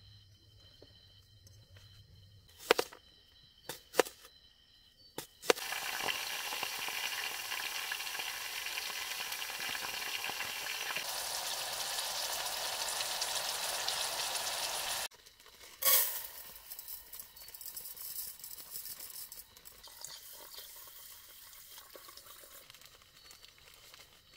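Broccoli and red pepper frying in a small aluminium camping pot on a portable gas stove: a steady, loud sizzle that starts about five seconds in and stops abruptly about two-thirds through. Before it come a few sharp knocks, and after it a single click and fainter sizzling.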